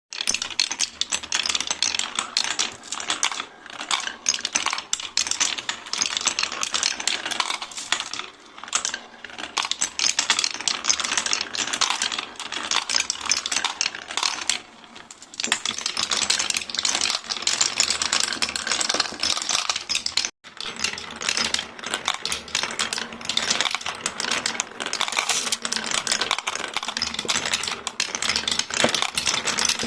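Many marbles rolling and clicking against each other and the track of a marble run, a dense continuous rattle of small hard impacts. It breaks off for an instant a little past two thirds of the way through.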